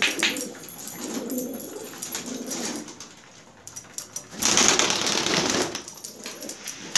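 Domestic pigeons cooing in low, rolling calls through the first few seconds. A little past halfway comes a loud burst of rustling noise lasting about a second.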